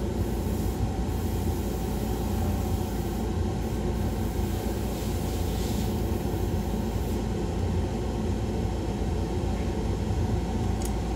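Painting spray booth's extraction fan running with a steady drone, with a faint click near the end.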